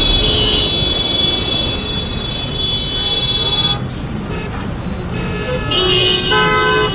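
Street traffic with car horns sounding: one long horn blast lasting until about four seconds in, then a second horn of a different pitch near the end.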